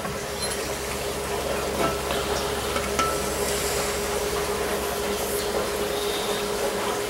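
Steady workshop background noise with a constant hum. A few faint, light knocks come near the start and about two and three seconds in.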